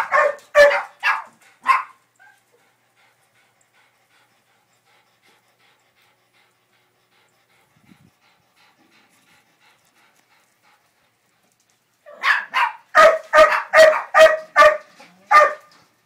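A dog barking in short runs of sharp barks: a few at the start, then a long pause, then a quick run of about ten barks near the end.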